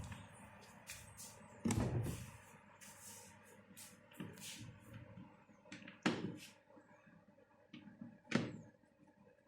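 A few scattered knocks and clatters of parts and tools being handled during washing machine repair work, three louder ones about 2, 6 and 8½ seconds in, with small clicks between.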